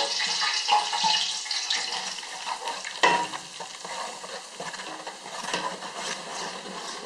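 Flour and hot oil sizzling in a pan as a roux is stirred with a large spoon, the spoon scraping the pan, with a sharp knock against it about three seconds in.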